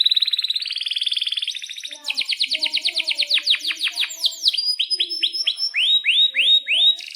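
Domestic canary singing. It starts with a fast, buzzy rolling trill, then moves into a run of rapid downward-sweeping whistled notes that slow to about two a second near the end.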